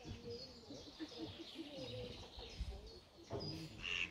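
Small birds chirping in short high notes, over the low cooing of a pigeon.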